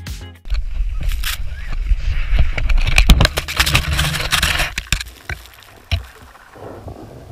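Wind and snow rushing and scraping over a ski camera's microphone as a skier wipes out and tumbles through the snow, with knocks and a low rumble. It dies down after about five seconds, with one more thump a second later.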